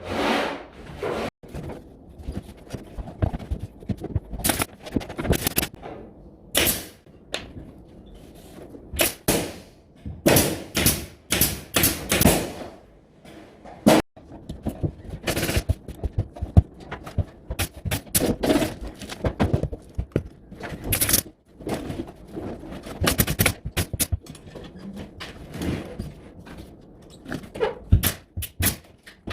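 Pneumatic nail gun firing into gypsum board and ceiling framing: sharp shots, some single and some in quick runs, with a few abrupt cuts in the sound.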